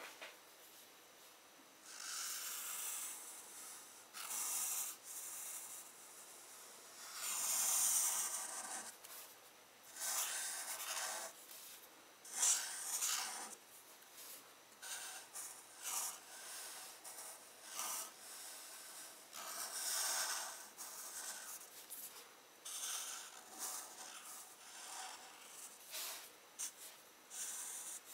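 Felt-tip marker drawn across a sheet of paper in a string of separate strokes, its tip rubbing and scratching on the paper, each stroke lasting about a second with short pauses between.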